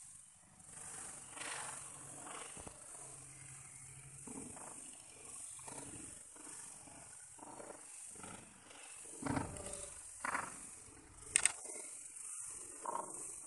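Many farmed crickets chirping together in a steady high-pitched chorus, over rustling and knocking as dry banana-leaf litter is handled in the pen, with a sharp click near the end.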